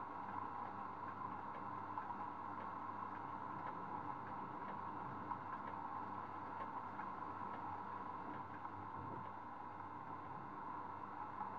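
Steady background noise with a constant hum-like band in the middle range and a few faint scattered ticks, with no distinct event standing out.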